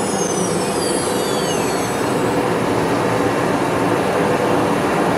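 CNC router with an HSD auto-tool-change spindle running under test: a steady, loud machine noise with a constant hum, and high whines that fall in pitch over the first two seconds.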